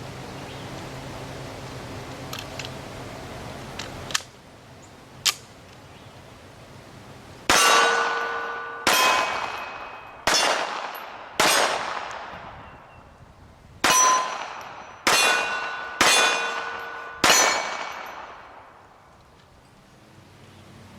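.380 semi-auto pistol firing eight cast-bullet handloads in two strings of four, about a second apart. Each shot carries a long metallic ring with a clear pitch, like a struck steel target. Two sharp clicks come shortly before the first string.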